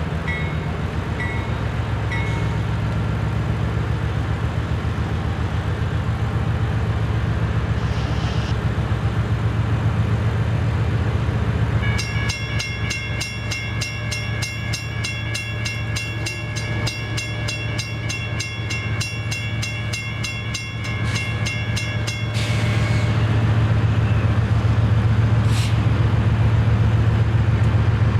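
Train running past with a steady low diesel rumble. About halfway through, a high, pulsing multi-note tone sounds for about ten seconds, then stops.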